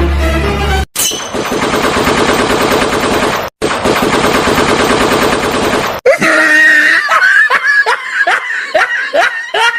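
Recorded automatic rifle fire, the fake AK-47 sound of the prank, in dense rapid continuous bursts with a brief break in the middle. About six seconds in it cuts off and gives way to a string of short, falling pitched sounds repeating about three times a second.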